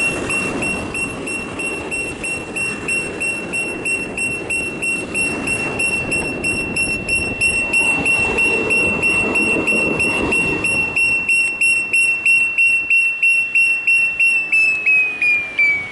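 Electronic warning alarm beeping loudly on one high tone, about two to three beeps a second, while a light rail tram rolls past with a low rumble partway through. Near the end the beeping slides down in pitch and stops.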